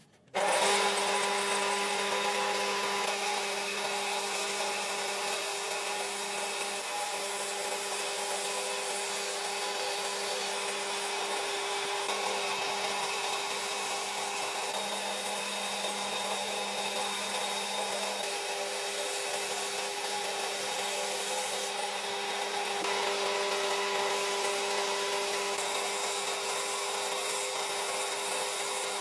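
An electric power tool switches on just after the start and runs steadily against wood, a constant motor hum under the dense noise of the wood being worked.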